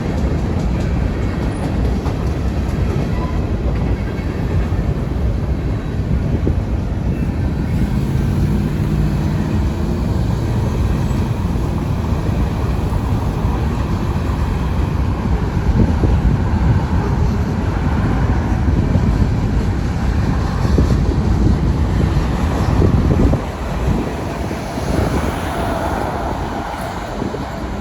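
Freight train of grain hopper cars rolling past: a steady, loud rumble of steel wheels on rail, easing a little near the end.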